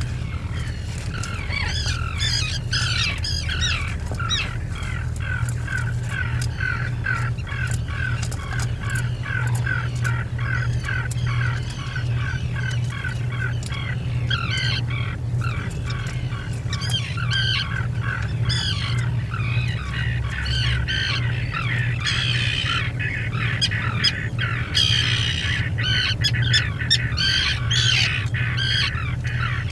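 Seabirds of a nesting colony calling, many short harsh calls repeated in quick succession, over a steady low hum.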